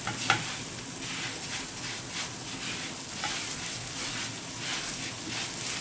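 Lisan al-asfour (orzo-like pasta) sizzling steadily as it fries in butter and ghee in a pan, being stirred with repeated scraping strokes, about two or three a second.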